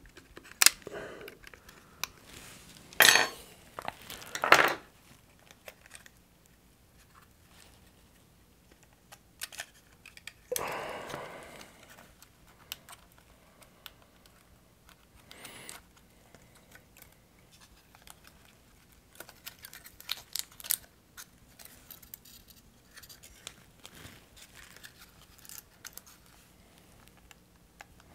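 Small clicks, taps and light scrapes of hands working on an opened Nintendo Switch's plastic and metal frame, freeing the LCD ribbon cable and lifting the panel out. There are a few louder knocks in the first five seconds and a longer rustle of about a second and a half about ten seconds in.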